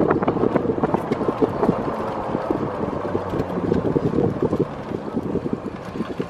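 Wind buffeting the microphone of a slowly moving vehicle, over a steady vehicle hum. The noise eases toward the end.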